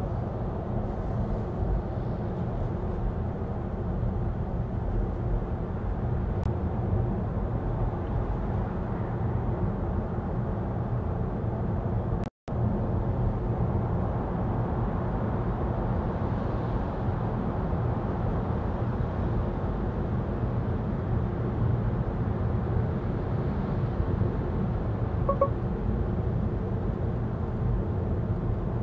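Volvo EX30 electric car driving: steady low tyre and road rumble with no engine note. The sound cuts out completely for a moment about twelve seconds in, and a short beep sounds about 25 seconds in.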